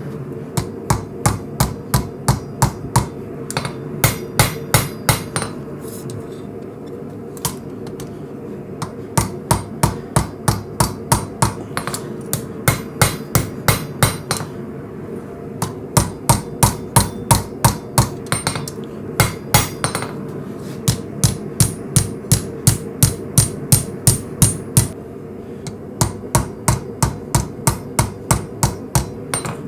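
Hammer blows on hot coil-spring steel, drawing down the knife's point for the preform: runs of sharp metallic strikes, about two to three a second, broken by several short pauses. A steady hum runs underneath.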